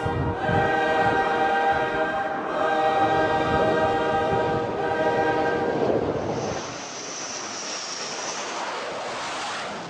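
Background music of long sustained chords, breaking off briefly every couple of seconds, for about the first six seconds. Then jet aircraft engine noise takes over: a steady rush with a high whine.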